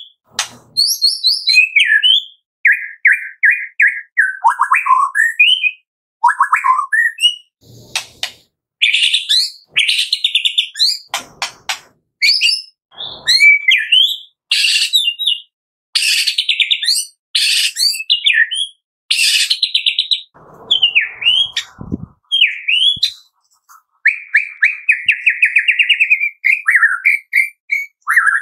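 White-rumped shama singing a varied song in short phrases with brief pauses between them: whistled notes that slide up and down, mixed with fast rattling trills.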